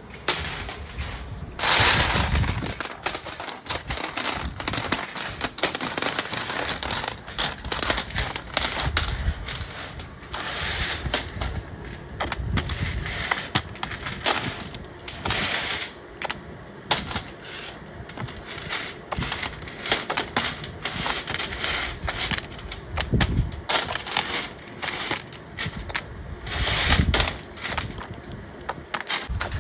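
Dense, irregular clicking and clattering of production work in a nail polish factory, loudest about two seconds in, with further bursts of clatter through the middle and near the end.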